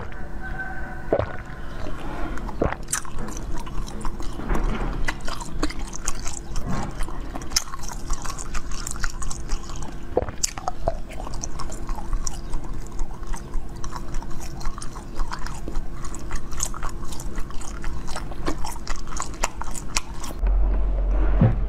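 Biting and chewing frozen jelly, with many irregular sharp cracks and crackles as the hard frozen block breaks in the mouth.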